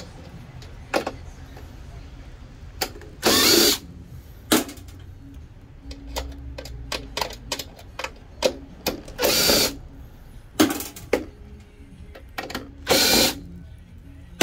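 Power screwdriver backing screws out of a printer's sheet-metal frame: three short whirs, one per screw, with small metallic clicks and taps between them.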